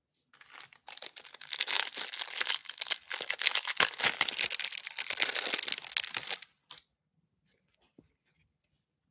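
Clear plastic wrapper of a trading-card hanger pack being torn open and crinkled by hand for about six seconds, with a brief lull about three seconds in.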